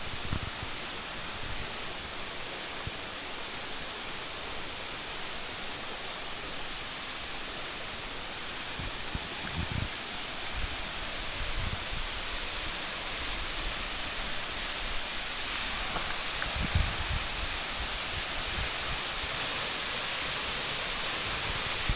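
A tall waterfall crashing down, a steady rushing roar of falling water that grows slightly louder over the stretch. A few short low thumps of wind or handling on the microphone.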